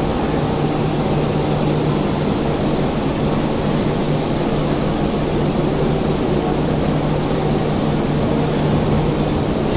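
Stationary Odakyu electric commuter train at the platform, its on-board equipment running in a steady hum and whir.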